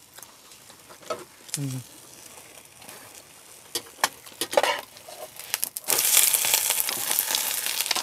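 Cabbage pancake frying in oil in a frying pan: a metal turner scrapes and taps against the pan in scattered clicks, then about six seconds in a loud, even sizzle starts as the pancake is flipped onto its uncooked side.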